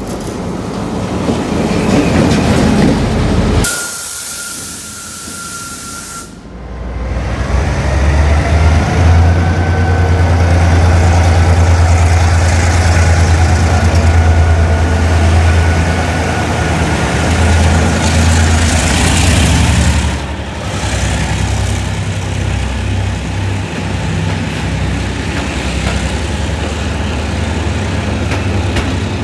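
Diesel locomotives and a train passing close by: a deep, steady engine drone that is loudest through the middle, then passenger coaches rolling past. About four seconds in, a held high tone sounds for a couple of seconds.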